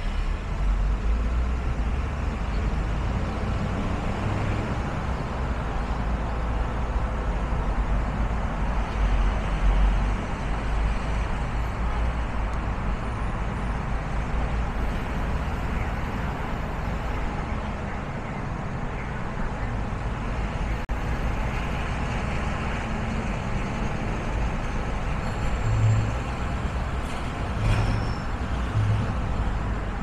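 Steady road and engine noise of a car driving on a city street, a continuous low rumble with tyre hiss over it. A few short low thumps come near the end.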